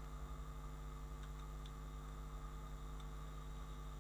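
Steady low electrical hum in the recording, with a few faint clicks about a second in and again near three seconds.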